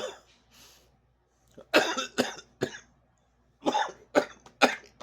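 A man coughing hard after inhaling from a THC vape cartridge: two fits of about three sharp coughs each, one around two seconds in and another around four seconds in.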